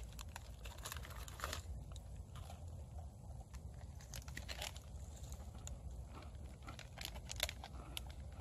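Crinkling of an MRE cookie pouch for about the first second and a half, then a person chewing a sugar cookie with a scatter of small crunches.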